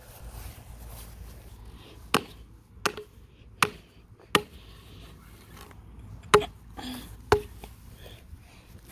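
Six sharp knocks of a hard object striking, spaced irregularly over about five seconds, the loudest a little past the middle.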